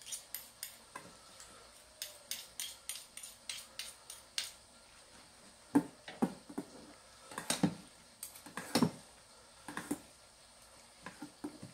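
Metal chopsticks clicking and scraping against a stainless steel bowl as noodles are tossed and mixed. A quick run of light clicks comes first, then a few louder knocks about halfway through.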